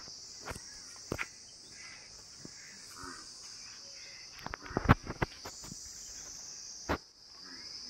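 Steady high-pitched chorus of insects, crickets or cicadas, with a few scattered sharp knocks and clicks; the loudest cluster of knocks comes about five seconds in.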